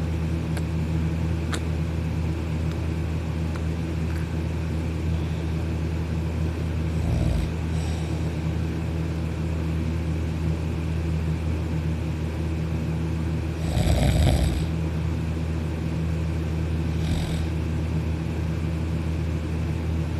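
Loud snoring from a heavy sleeper: a few snores several seconds apart, the loudest about fourteen seconds in, over a steady low hum.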